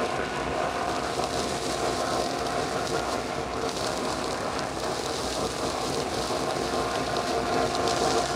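Rockler 1250 CFM wall-mount dust collector running at a steady hum, sucking sawdust, wood chips and bits of plastic through its hose into a Super Dust Deputy cyclone separator, with debris hissing and ticking through the hose.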